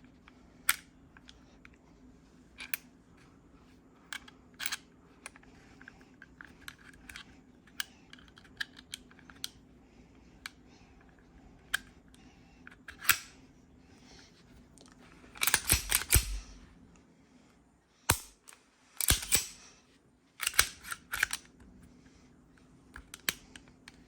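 Small metallic clicks and taps of a Sig Sauer P938 pistol's parts being fitted back together, with a cluster of louder clicks and snaps about fifteen seconds in and a few more sharp clicks a few seconds later.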